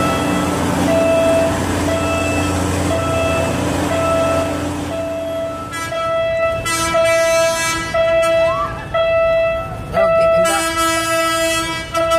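Rolling rumble of a PNR diesel-hauled 203-series commuter train passing and fading away over the first five seconds. Throughout, an electronic level-crossing warning alarm beeps about one and a half times a second. The beep turns louder and fuller in tone after about six seconds.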